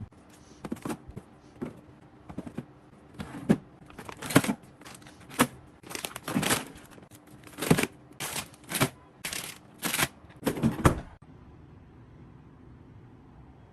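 An irregular series of clacks, knocks and rustles of things and packaging being handled, growing louder and busier, then stopping suddenly about eleven seconds in.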